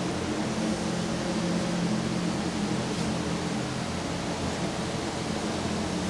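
HEM V100-LM-2 vertical band saw's motor running: a steady hum with a hiss, holding even throughout.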